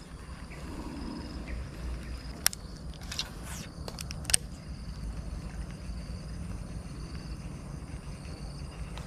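A fishing reel being wound to retrieve a lure after a cast: a low steady whirr with a few sharp clicks, over a faint steady buzz of insects.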